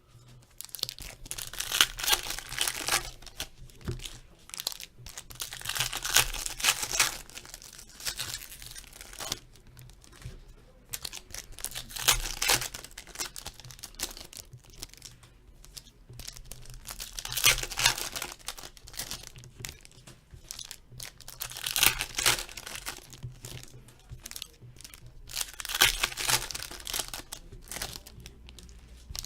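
Hockey card packs being torn open one after another: repeated bursts of wrapper tearing and crinkling every few seconds, with quieter rustling and handling in between.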